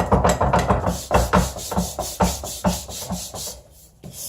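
Hand sanding an oak vise jaw: quick back-and-forth rubbing strokes on the wood. The strokes slow after about a second and stop shortly before the end.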